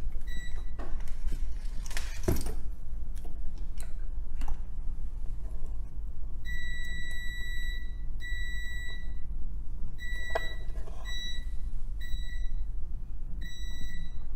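Electronic beeps from bench test equipment, all at one high pitch: a single short beep just after the start, then six beeps from about halfway on, the first the longest. A few handling clicks, the loudest about two seconds in, over a steady low hum.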